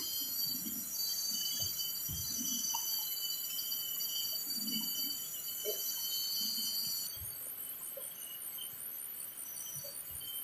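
Forest insect chorus: several steady, high-pitched insect tones layered together, the upper ones shifting about seven seconds in, with a few faint soft low knocks underneath.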